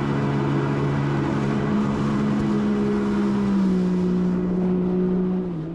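Personal watercraft engine running at steady throttle under way, with water rushing and spraying off the hull; the sound fades out near the end.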